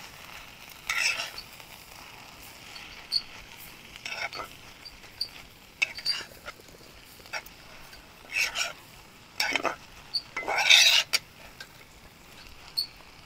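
A spoon scraping and stirring in a cooking pan, six or so irregular strokes, as bharangi leaf bhaji with soaked moong dal is mixed. A faint steady sizzle runs underneath.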